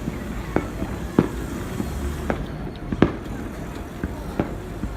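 Aerial fireworks bursting: about half a dozen sharp bangs at uneven intervals, the loudest about three seconds in, over a steady outdoor background.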